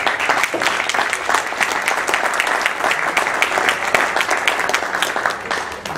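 Audience applauding: many hands clapping densely and without a break.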